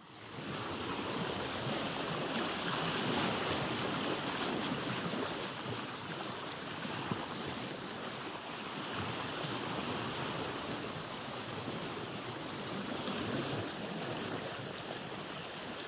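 Steady rushing sound of surf and wind, fading in from silence at the start.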